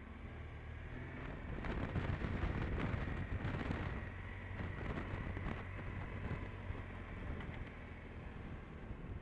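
Motorcycle engine running on the move, with wind noise buffeting the microphone; it gets louder for a couple of seconds from about one and a half seconds in, then eases back.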